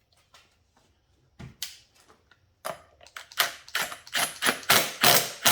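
Ratchet wrench working the flywheel nut onto the outboard's crankshaft: a run of short rasping strokes starting about a second in, getting louder and quicker toward the end as the nut is run down and tightened.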